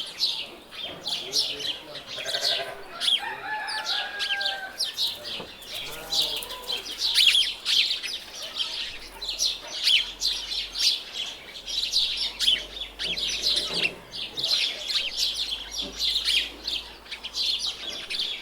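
Small birds chirping continuously, dense and overlapping, with a few clucking calls from chickens in the first few seconds.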